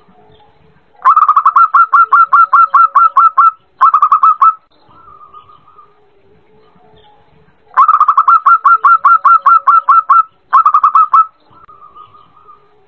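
Zebra dove (perkutut) song, heard twice: a loud run of quick, evenly repeated notes, about five a second, then after a brief break a short tail of a few more notes. Faint bird calls fill the gaps between the two songs.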